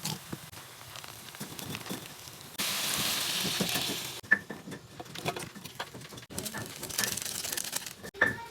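Food sizzling while frying in a pan, with scattered clicks and taps. About two and a half seconds in, the sizzling suddenly grows much louder for about a second and a half, as when something is added to the hot pan, then settles back.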